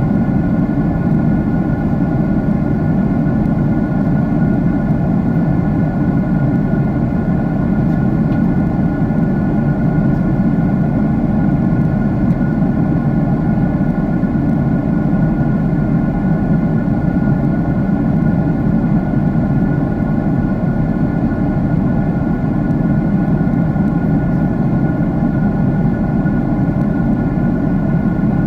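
Jet airliner's engine noise heard inside the passenger cabin in flight: a steady, unbroken low rumble with a few faint steady hums above it.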